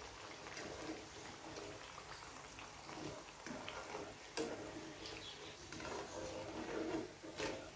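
Urad-dal pepper vadas deep-frying in hot oil with a faint bubbling sizzle, and a few short knocks as a wire spider skimmer scoops them out of the pan, one about halfway through and one near the end.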